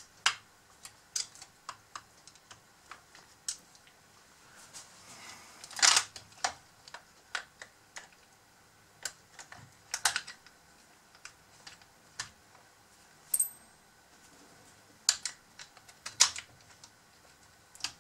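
Irregular sharp clicks and light knocks from the metal arm of a Huina 580 model excavator, its small parts and cables being handled and fitted on a workbench. The loudest clatter comes about six seconds in and again about ten seconds in.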